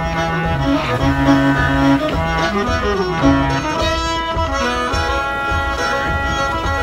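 Instrumental background music led by bowed strings, with a bass line stepping between long held notes.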